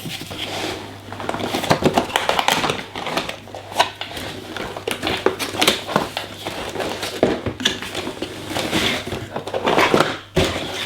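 Packaging being handled by hand during unboxing: irregular rustling of the box and wrappings with small knocks and clicks of parts being lifted out.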